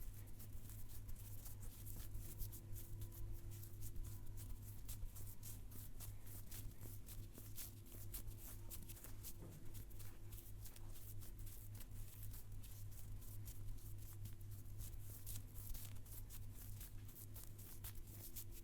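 Hands rubbing and working over hair and skin in a massage: continuous rapid rustling and crackling friction, over a steady low electrical hum.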